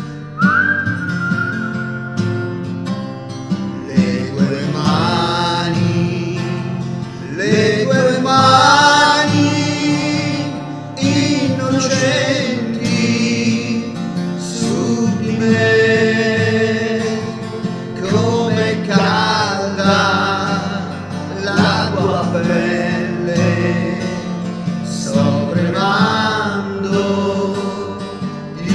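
A man singing a song with acoustic guitar accompaniment.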